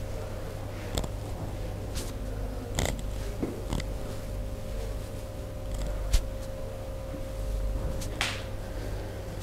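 Hands working on a client during a massage: scattered short taps and clicks, the sharpest about six seconds in, and a short rubbing sound a little past eight seconds, over a steady low hum.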